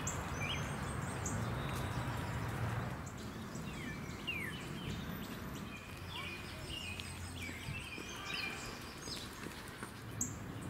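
Several small birds chirping and whistling, with short chirps and quick falling notes overlapping throughout, over a steady low background hum.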